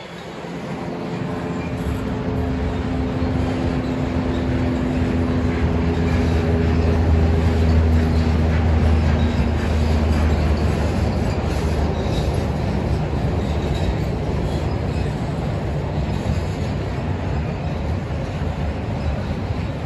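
Freight train cars rolling past on the rails: a steady rumble of wheels on track that grows louder over the first several seconds, with a low steady hum in the first half that fades out.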